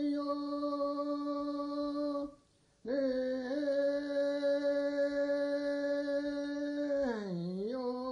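Background music: a voice holding long, steady chanted notes, breaking off for about half a second a little over two seconds in and dipping in pitch near the end.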